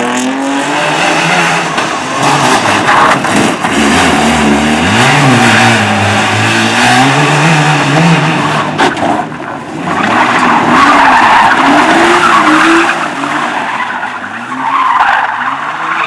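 Cars driven hard round a tight course, engines revving up and down over and over, with tyres scrabbling and skidding on the loose, dusty surface. There is a brief lull a little past halfway before the revving and skidding pick up again.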